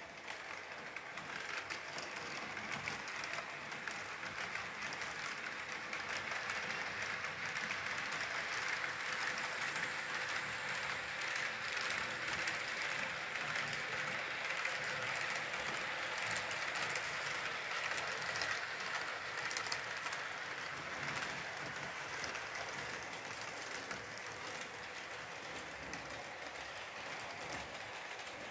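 H0-scale model of the ÖBB City Airport Train running on the layout's track: a steady rolling noise of wheels on rails, growing louder over the first several seconds and then holding.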